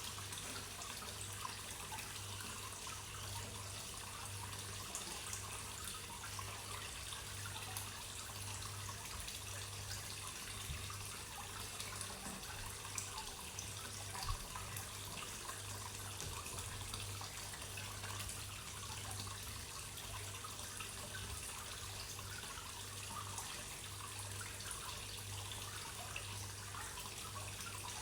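Water trickling steadily into a koi pond, with a steady low hum underneath and a small knock or two about halfway through.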